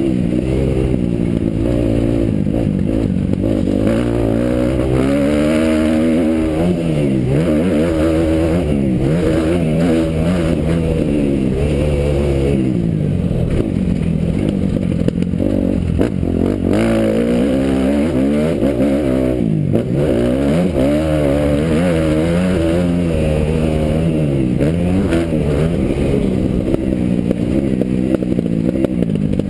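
Kawasaki motocross bike's engine revving hard and easing off again and again, its pitch climbing and falling repeatedly with the throttle, heard close up from a helmet-mounted camera.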